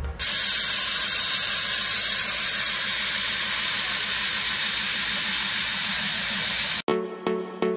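A steady, even hiss like rushing air or static that starts suddenly and cuts off sharply near the end, where electronic music with a beat begins.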